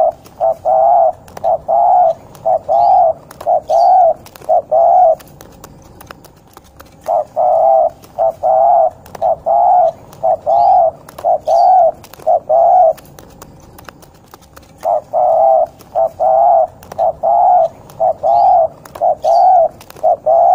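A derkuku dove singing in the 'ngorok' style: three runs of quick repeated coos, about two a second, with pauses of about two seconds between runs. Faint chirps of other birds sound behind it.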